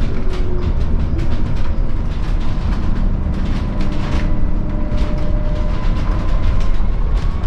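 Cabin noise inside a Scania Citywide battery-electric bus on the move: a steady low road rumble with frequent clicks and rattles from the interior fittings, and a faint thin whine that drifts slowly upward in pitch.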